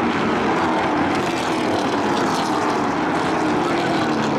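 Race pickup trucks' engines running together on the oval track, a steady, loud drone of several engines whose pitch drifts slowly up and down.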